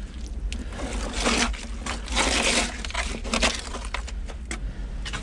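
A gloved hand scraping wet earth out of the bottom of an old wooden box, in two scrapes about a second in and around two seconds in, with small knocks in between. A steady low hum runs underneath.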